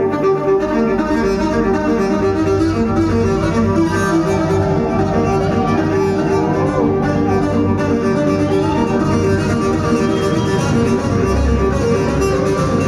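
Amplified violin playing live in a concert hall: a run of quick repeated notes with a few sliding notes about six seconds in, over a low steady backing.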